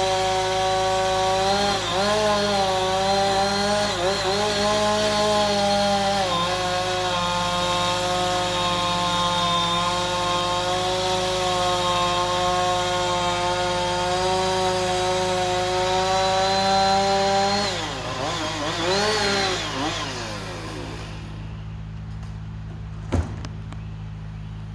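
Chainsaw running at high revs while cutting wood, its pitch dipping briefly now and then as the chain bites in. About three-quarters of the way through, the throttle is let off with a couple of short revs, and the saw settles to a lower, quieter running hum. A single sharp knock comes near the end.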